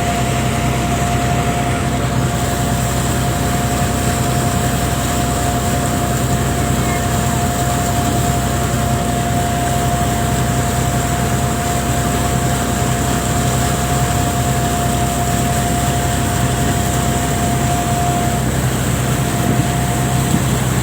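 Fishing boat's engine running steadily, a low drone with a steady higher tone over it.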